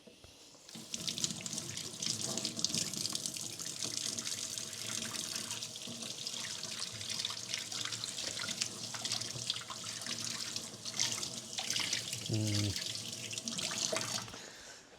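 A water tap running into a sink for about thirteen seconds, then shut off. A brief low tone sounds about twelve seconds in.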